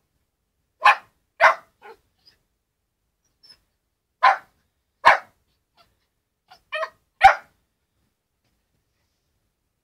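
Thirteen-week-old Shetland Sheepdog puppy barking: five sharp barks, two in quick succession, then two more, then one, with a few softer barks between them.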